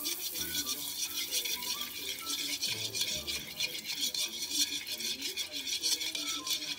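Metal spatula scraping back and forth in rapid strokes against a wok, spreading melting butter, over background music.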